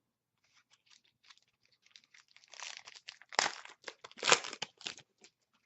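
Crinkling of a hockey-card pack wrapper being handled and torn. There are a few faint ticks at first, then a run of louder crinkles between about two and a half and five seconds in.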